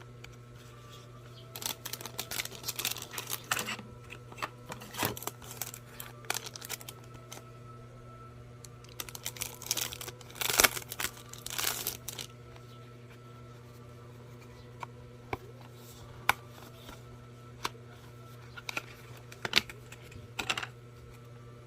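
Plastic packaging being handled and unwrapped: crinkling and tearing in two busy stretches, then scattered light taps and clicks.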